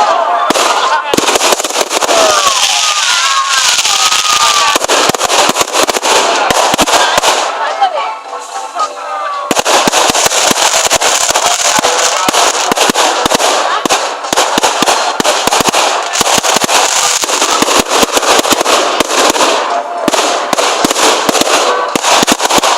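Fireworks display: a dense, nonstop crackle of many rapid small pops, easing off briefly about eight seconds in before building back up.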